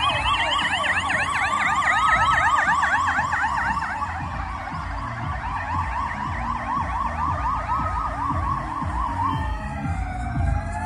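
Several police escort sirens sounding at once: fast yelping sirens layered over a slower rising-and-falling wail, with the low rumble of passing vehicles underneath. The yelping fades out about nine seconds in, leaving the slow wail sweeping down and back up.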